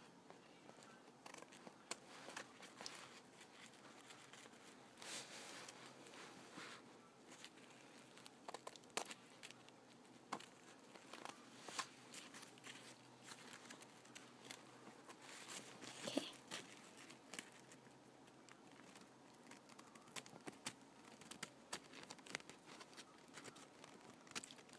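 Faint, scattered snips of scissors cutting through paper towel, with soft rustling of the paper between cuts.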